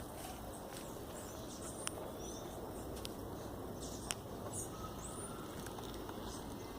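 Small birds chirping in short, high calls over a steady low background hiss, with a couple of sharp clicks about two and four seconds in.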